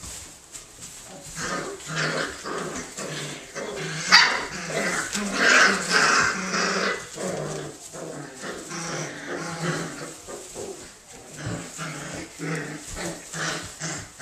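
A litter of puppies play-fighting, with a run of short growls, yips and barks. The calls are busiest in the first half, and one sharp yip about four seconds in is the loudest.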